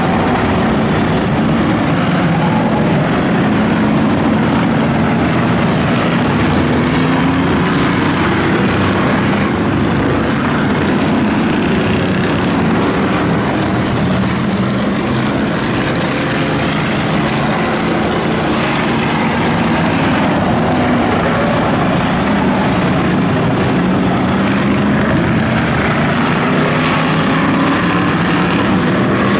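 Many V8 race-car engines running together in a pack, a loud continuous drone whose pitch keeps swelling and dipping as the cars rev and lift.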